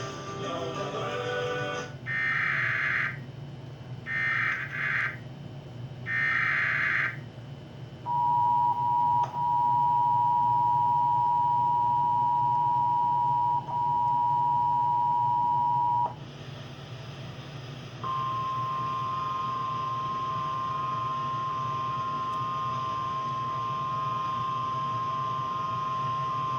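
Emergency Alert System tones opening a tornado warning: the tail of some music, then three one-second bursts of digital header data, then the two-tone attention signal held for about eight seconds. After a short pause comes a single steady alert tone lasting about nine seconds.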